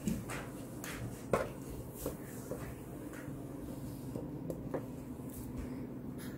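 A few light knocks and rubbing sounds from objects being handled on a countertop, over a steady low hum. The sharpest knock comes about a second and a half in.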